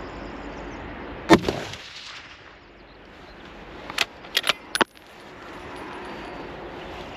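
A single shot from a Tikka T3X TACT A1 bolt-action rifle in .308 with a muzzle brake: one sharp, loud report with a short ringing tail. About three seconds later come four quick metallic clicks, the bolt being worked to eject the spent case and chamber the next round.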